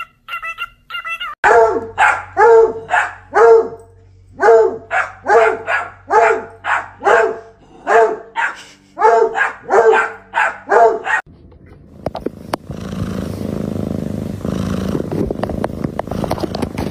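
A dog barking over and over, about fifteen sharp barks in ten seconds, after a few short cockatiel chirps at the start. The barking stops about eleven seconds in and gives way to a steady low rustling rumble.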